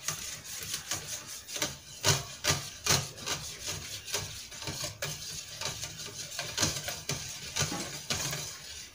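Wire whisk scraping against a stainless steel bowl in quick repeated strokes, about two a second, as it beats egg yolks with water.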